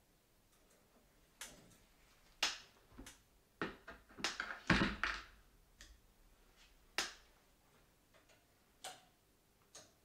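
Scattered metal clicks and clinks of a screwdriver and a metal light-fixture mounting bracket being handled at a ceiling electrical box, with a busier run of knocks and one dull thump about halfway through.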